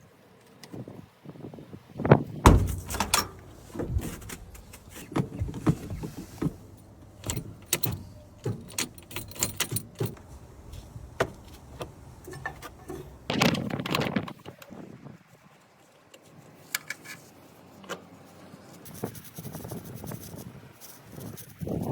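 Irregular knocks, clicks and rattles of handling work around a vehicle, with no engine running. The loudest knock comes about two seconds in, and there is a longer clatter about thirteen seconds in.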